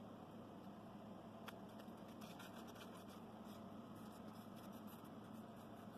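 Faint light clicks and scrapes of small scroll-sawn wooden segment pieces being pulled apart and set down on a tabletop, most of them about two to three and a half seconds in, over faint steady room hum.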